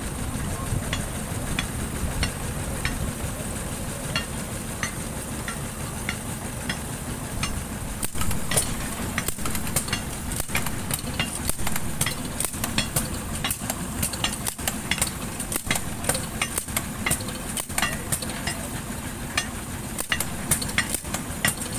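Engine of an old road-construction machine running steadily, with many irregular sharp crackling clicks over it that grow denser about a third of the way in.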